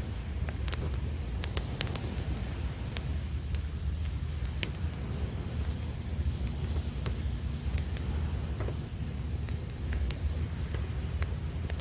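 Wood campfire crackling, with irregular sharp pops and snaps, over a steady low rumble of sea waves.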